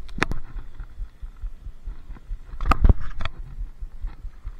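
Handling noise on the camera: a sharp knock just after the start and a quick cluster of knocks and low thumps near the middle, over a low rumble.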